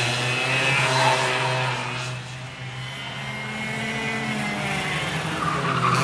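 Go-karts running on a track, their small engines droning as karts pass. The sound dips about halfway through and builds again near the end.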